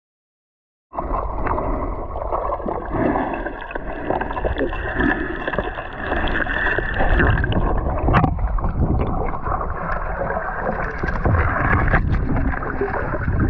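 Muffled underwater sound picked up through a camera's waterproof housing: water rushing and bubbling with scattered sharp clicks and knocks, starting abruptly about a second in.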